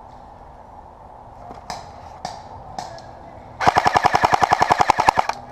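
Airsoft gun firing: a few single shots, then a rapid full-auto burst of about a second and a half near the end.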